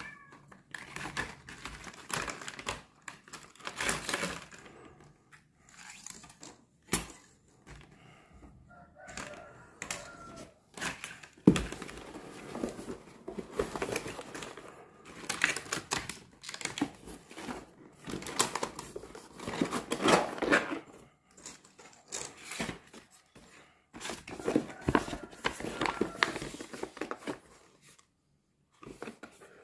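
Paper and cardboard packaging being handled: rustling, crinkling and tearing in irregular bursts, with a sharp knock about a third of the way through.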